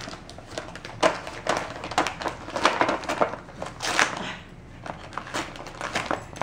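Wrapping paper crinkling and rustling in quick, irregular scrunches as a dog paws and bites at a wrapped present.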